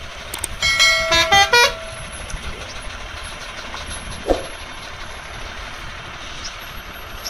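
A truck horn sounds a quick run of short toots at stepped, changing pitches about a second in, over steady truck engine and road noise. A brief short sound comes about four seconds in.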